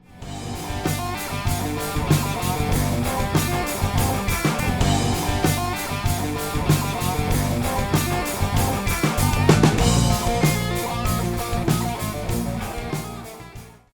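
Rock band playing: electric guitars, bass and a drum kit with a steady beat, fading out near the end.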